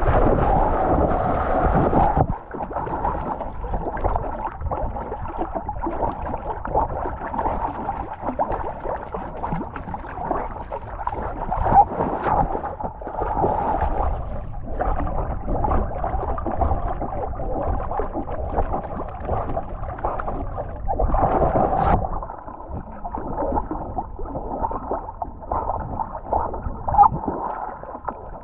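Water splashing and lapping against a cocker spaniel and the camera strapped to its back as the dog swims, with heavy splashing in the first two seconds as it plunges in.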